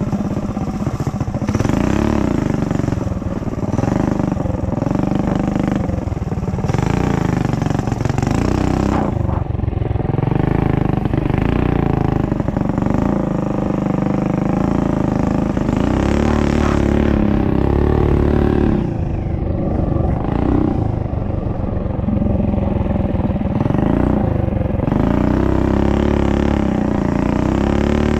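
Minibike engine revving up and easing off again and again while riding, its pitch rising and falling every couple of seconds.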